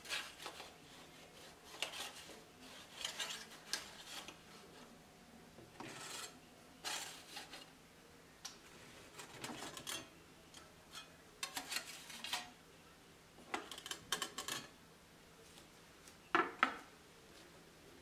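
Metal spatula scraping under baked sugar cookies on a dark metal baking pan and clinking against it, in a series of short irregular scrapes. A couple of louder knocks come near the end.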